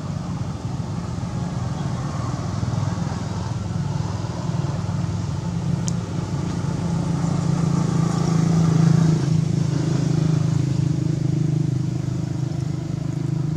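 An engine running steadily with a low drone, growing a little louder about two-thirds through and then easing back.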